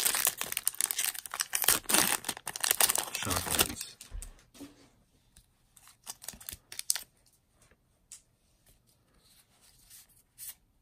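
A Magic: The Gathering booster pack's foil wrapper being torn open and crinkled for about four seconds. After that come sparse faint clicks and rustles as the cards are slid out and handled.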